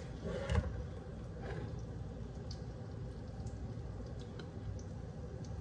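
Soft, wet squishing of a spoon pressing cream cheese and spinach filling into raw chicken breasts. A few faint light clicks sit over a steady low background hum.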